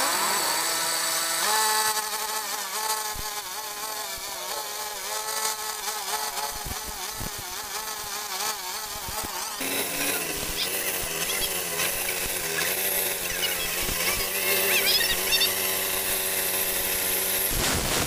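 Walk-behind concrete saw running, its small engine driving the belt-driven blade as it cuts into a concrete slab: a steady buzzing whine whose pitch wavers as the blade loads. The sound changes abruptly twice, about two and ten seconds in.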